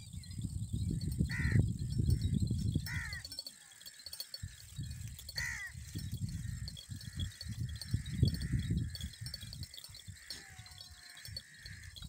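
Goat herd in a field: three short bleats, about a second and a half, three seconds and five and a half seconds in, over a low rumbling noise.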